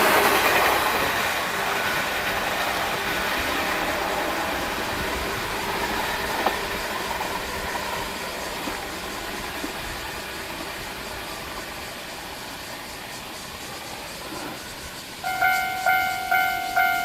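A passing train rumbles away and fades for about fifteen seconds. Near the end, a Japanese level-crossing warning bell starts ringing, an even electronic ding repeated about one and a half times a second.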